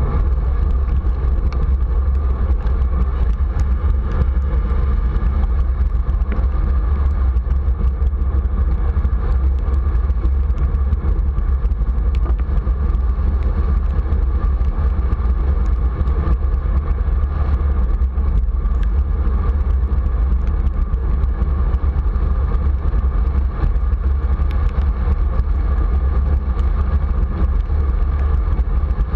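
Steady low wind rumble on the microphone with tyre noise from a bicycle rolling along a rain-wet road, heard through a bike-mounted camera.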